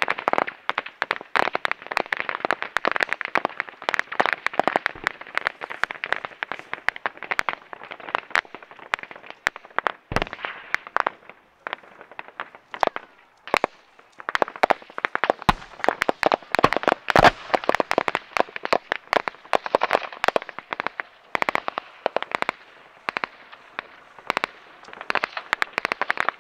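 Dry savanna grass crackling and snapping in a dense, irregular run of sharp pops, easing off for a few seconds about halfway through.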